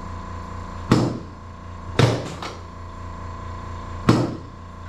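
Chiropractic drop table's lumbar section snapping down under the adjuster's thrusts as the L5, L4 and L3 vertebrae are adjusted: three sharp clunks about one, two and four seconds in, the second followed by a quick rattle, and another just at the end, over a steady hum.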